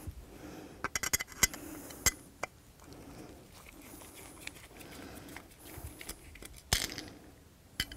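Small metallic clicks and taps of screws and tools against a hard drive's aluminum frame as the spindle motor's screws are taken out and the motor is freed. There is a quick cluster of clicks about a second in, a few single ticks over the next second and a half, and a couple more near the end.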